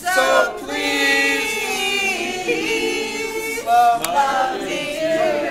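A small group of people singing together without accompaniment, several voices holding long notes at once.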